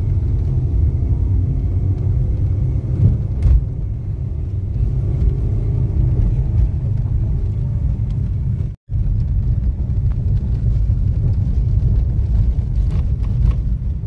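Car cabin noise while driving slowly on a rough dirt road: a steady low rumble of engine and tyres, with a few faint knocks. The sound cuts out for a split second about nine seconds in.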